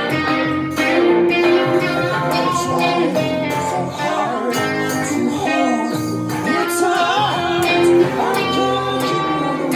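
Music: a song with strummed guitar, and a voice singing a gliding melody from about halfway through.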